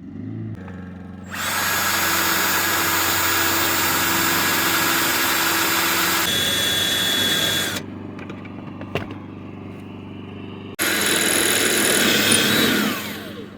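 Power drill boring a hole through two layers of door sheet metal for a rivet, in two long runs with a short pause between. The second run ends with the motor's whine falling away as it spins down.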